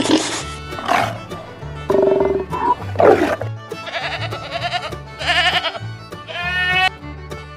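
A quick run of different animal calls, one after another, over background music with a steady repeating bass line.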